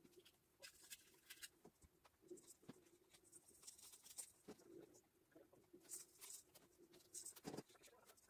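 Near silence: faint, scattered rustles and light clicks of artificial Christmas tree branches and baubles being handled while ornaments are hung, over a faint steady low hum.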